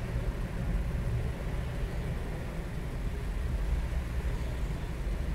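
Steady low background rumble with a faint even hiss, no distinct events.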